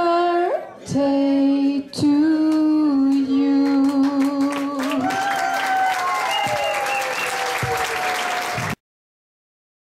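A woman singing slow, long-held notes into a microphone, then applause and cheers from the audience rising under her last note about five seconds in. The sound cuts off suddenly near the end.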